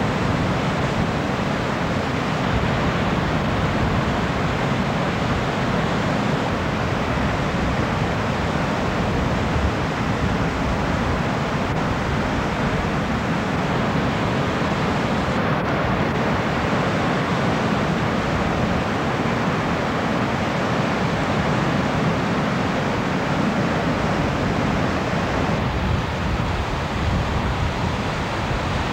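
Ocean surf breaking over a rocky reef and washing up the shore, a steady rush of noise with no distinct single wave crashes, and wind buffeting the camcorder microphone.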